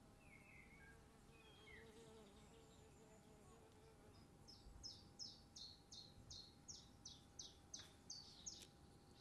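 Faint garden sounds: a flying insect buzzes with a wavering hum in the first half. From about halfway through, a small bird sings a run of about a dozen quick, high, down-slurred notes, roughly three a second.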